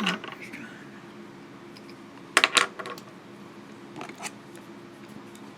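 A few sharp metallic clicks from a metal bolt-action ballpoint pen being handled, two close together about halfway through and fainter ticks a little later, over a faint steady hum.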